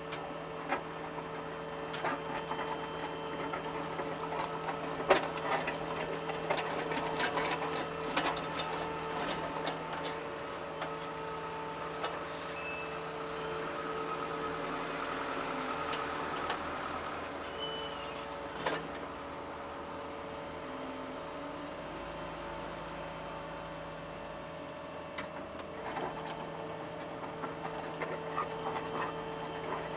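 John Deere 75 excavator's diesel engine running steadily during trench digging, with scattered knocks and rattles from the bucket and machine, the loudest about five seconds in.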